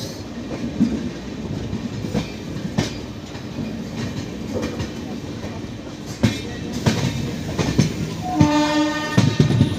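Express passenger train running through a station yard, its wheels clacking irregularly over rail joints and points over a steady rumble. A train horn sounds for just under a second near the end.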